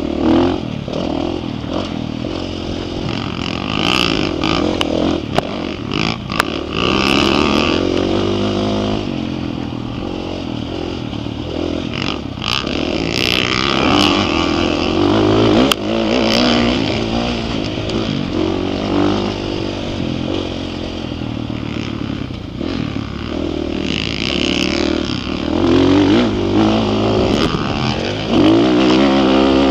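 Dirt bike engine revving hard, its pitch climbing and dropping again and again as the bike accelerates and shifts through the gears, with scattered sharp knocks throughout.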